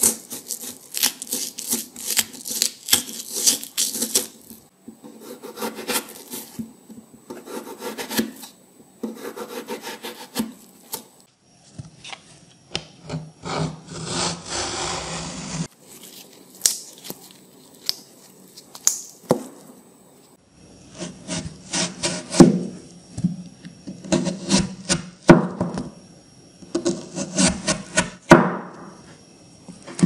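Raw potato and winter melon being cut with a knife and peeled with a hand peeler, close up: runs of crisp slicing strokes and stretches of dense scraping, changing abruptly several times.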